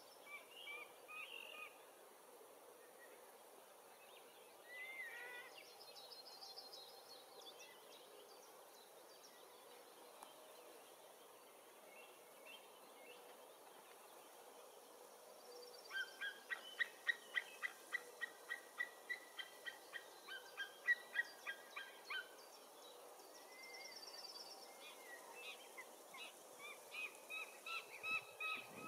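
White-tailed eagles giving a fast series of yelping calls, about three a second, for several seconds past the middle, with another series near the end, as they contest a fish. Small songbirds trill faintly in the background.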